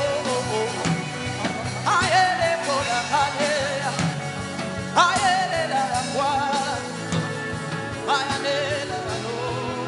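Worship music with a voice singing in drawn-out phrases, each starting about every three seconds and trailing off.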